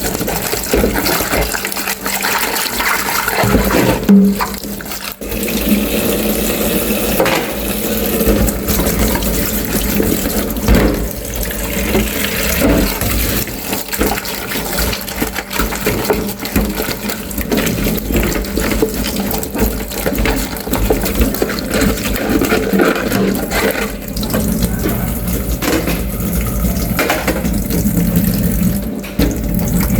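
Tap water running and splashing into a sink while dishes are washed, with occasional knocks of dishes.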